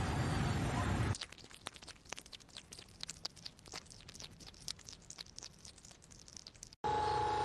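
Chewing: many rapid small crunches and clicks at a low level, as of an animal eating. A louder noisy stretch cuts off about a second in, and near the end the sound switches abruptly to a louder passage with a steady tone.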